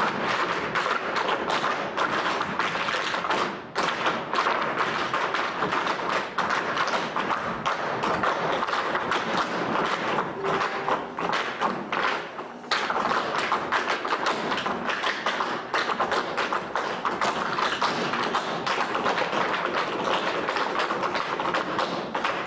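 An ensemble of tap dancers beating out rhythms with their shoes on a wooden stage floor, with no music: a dense, fast patter of taps and stamps. There are brief breaks about three and a half seconds in and again around twelve seconds.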